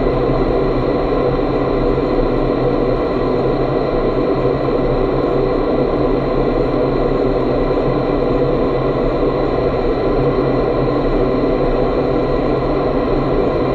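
Steady rush of air inside the flight chamber of an indoor vertical wind tunnel, driven by the tunnel's fans, with a few steady high tones over the noise.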